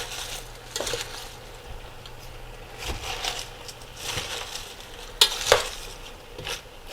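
Shredded cabbage frying in butter in a pan, with a low sizzle, while a utensil stirs and scrapes through it in several short strokes. The loudest stroke comes just after five seconds in.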